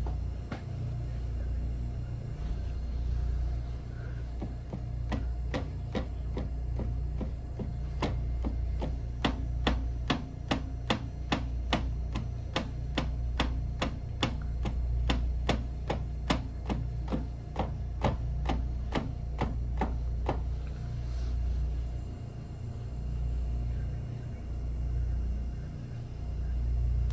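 A fast run of about forty sharp impacts, roughly two and a half a second, that starts about five seconds in and stops about twenty seconds in: instep (haisoku geri) kicks striking a wrapped pipe for shin and instep conditioning. A steady low rumble runs underneath.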